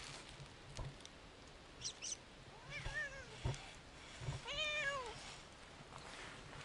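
Siamese cat meowing twice, each call rising then falling, the second longer and louder.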